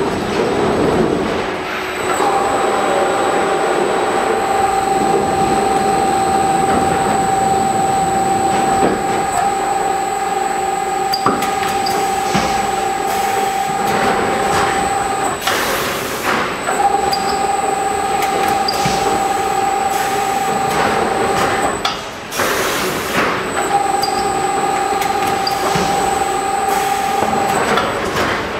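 FARBAL FM5D multi-width film wrapping machine running. A steady whine runs in three long stretches, broken twice by a short, loud burst of noise, with occasional clicks and knocks.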